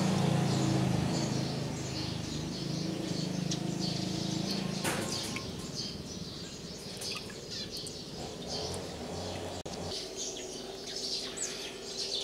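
Buttermilk pouring from a mason jar through a plastic strainer into a glass measuring cup, a fuller stream that thins to a trickle after about five seconds, with a light knock near the middle. Small birds chirp throughout.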